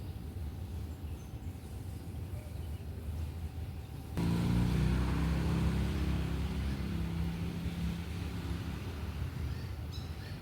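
A low steady rumble, then about four seconds in a motor vehicle's engine comes in suddenly, humming for several seconds before fading. A few short bird chirps near the end.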